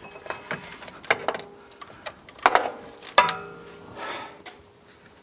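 Metal-on-metal clicks and clunks as the old starter motor, stuck in with sealant, is worked loose from the engine case and pulled out. The two loudest knocks come in the middle, a couple ringing briefly, with a short scrape near the end.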